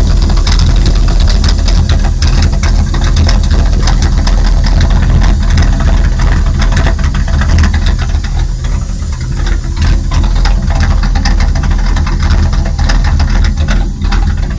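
1999 Dodge Ram 1500's 5.9-litre V8 idling roughly and unevenly, out of gear, with a loud hissing from the top of the engine. It is an intermittent fault in which the engine runs rich, and the owner ties it to the idle air control valve. The engine dips for a moment about eight seconds in.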